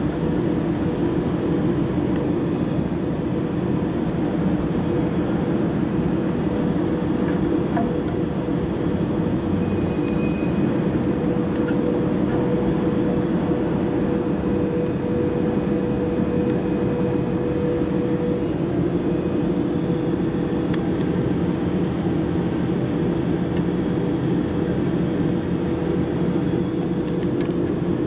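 Steady machine hum with a faint steady tone above it, even in level throughout.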